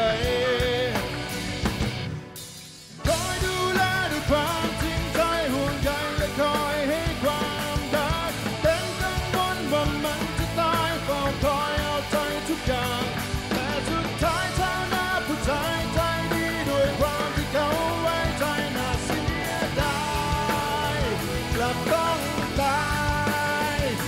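Male lead singer singing a Thai pop-rock song live with a rock band. The music breaks off for about a second, roughly two seconds in, then the singing and band come back in.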